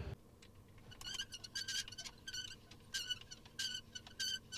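Faint, repeated short high-pitched chirps from a calling animal, two to three a second at uneven spacing, over a low steady hum.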